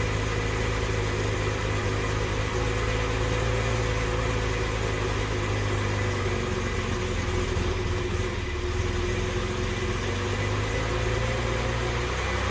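Series 1 Jaguar XJ6's XK straight-six idling slowly just after a hard cold start without choke, nursed on the throttle just above stalling: it wants to rev up, then wants to die. The engine note holds steady with a slight dip about eight seconds in.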